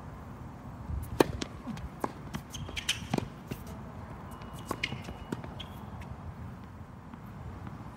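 A tennis rally on a hard court: sharp racket strikes and ball bounces from about a second in until near the middle, the loudest hit first. A few short high squeaks come from sneakers on the court surface.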